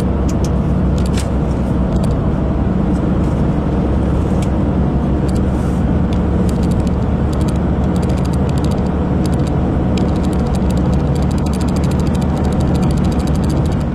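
Car driving at speed on a motorway, heard from inside the cabin: a steady rumble of tyre and engine noise with a low hum, and scattered light ticks throughout.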